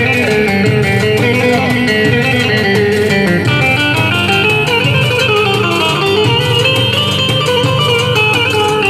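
Loud amplified live band music: a plucked-string melody over a steady beat, with no singing.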